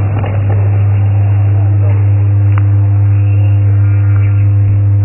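Loud, steady electrical mains hum from a public-address system, with nothing else standing out over it.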